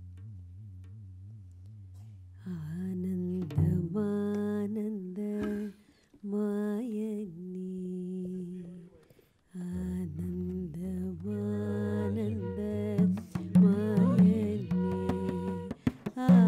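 Indian classical-style stage music: a singer's voice holds and bends long phrases over a steady drone, with two short breaks, and tabla strokes come in near the end.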